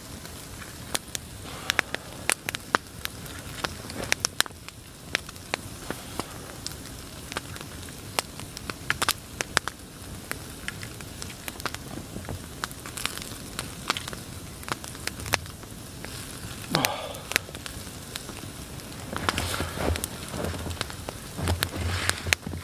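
Wood campfire crackling, with sharp irregular pops over a steady low hiss. Some louder rustling in the last few seconds.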